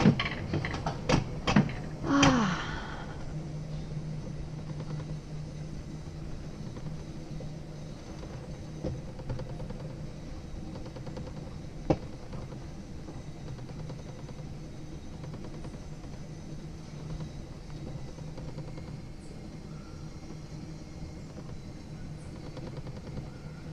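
Bobsled-style coaster sled running down its rail track, its wheels giving a steady low hum. A few sharp clicks and a brief falling tone come in the first couple of seconds, and a single sharp click about halfway through.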